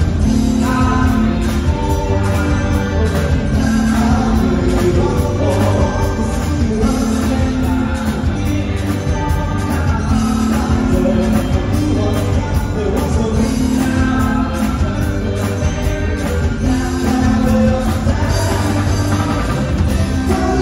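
Live band playing a song through stage speakers: singing over electric guitar and bass, with a steady beat.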